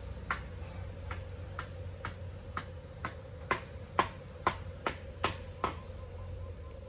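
A series of sharp clicks, roughly two a second and unevenly spaced, over a steady low engine hum.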